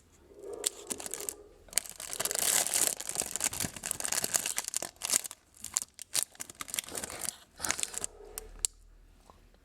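Plastic food wrapper being torn open and crinkled by hand, a dense rustling and crackling that dies away near the end.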